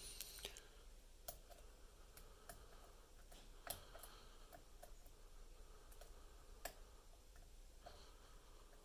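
Faint, irregular small metallic clicks of a lock pick working the pins of a Nemef NF4 dimple lock under tension, a few seconds apart.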